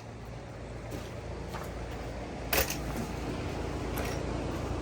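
One sharp shot from a pneumatic nail gun about halfway through, driving a toenailed nail into deck framing lumber, with a few light knocks of wood around it over a steady low rumble.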